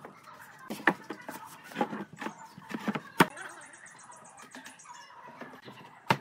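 Sharp knocks and taps at irregular intervals, the loudest about a second in, about three seconds in and near the end, with a faint high whine in the middle.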